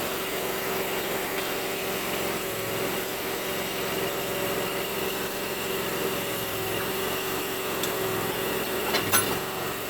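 Small backhoe's engine running steadily under digging work, with one sharp knock about nine seconds in.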